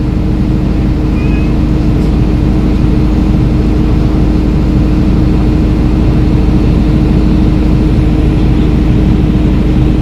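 Steady, loud drone of generator sets running, a constant low hum with one held tone over it that does not change in pitch or level.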